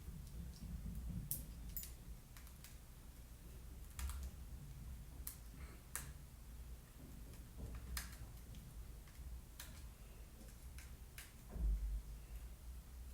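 Scattered light clicks and taps of small hard parts being handled, irregular and a second or so apart, with a couple of dull low bumps.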